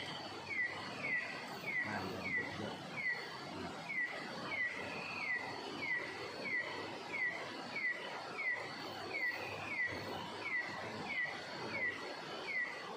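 An animal calling steadily: a short chirp that dips slightly in pitch, repeated about three times every two seconds. A faint, steady high-pitched whine lies beneath it.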